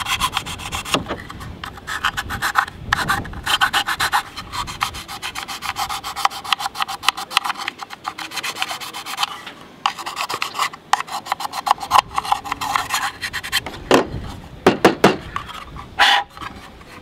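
Small metal hand file scraping quickly back and forth inside the mouth of a polymer PMag magazine body. It is breaking and chamfering the sharp inside edge so the follower can pass smoothly into the magazine extension.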